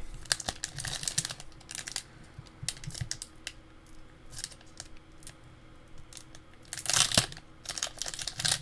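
Foil Pokémon booster pack wrapper crinkling and crackling in the hands as it is torn open, with the loudest burst of tearing about seven seconds in.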